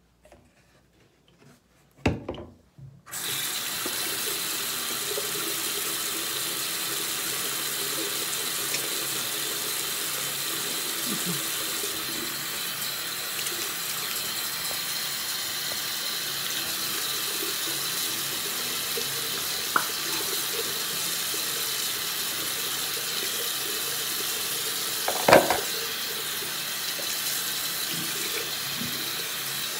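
Bathroom sink tap turned on about three seconds in and running steadily into the basin. A knock comes just before the water starts, and a louder knock about 25 seconds in.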